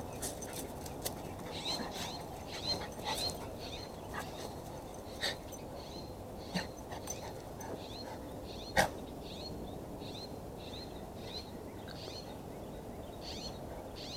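A bird chirping over and over in short, high chirps, about two a second. Scattered light clicks and one sharp knock about nine seconds in sound over a steady low background noise.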